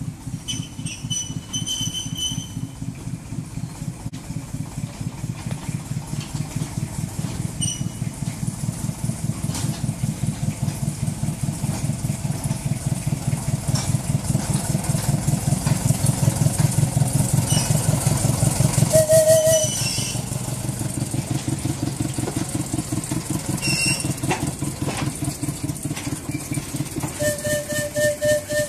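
Small narrow-gauge diesel locomotive's engine chugging with a steady rapid beat as it hauls skip wagons. It grows louder as it approaches, is loudest about two-thirds of the way through, then eases off as it passes. A few short high squeals come near the start, in the middle and near the end.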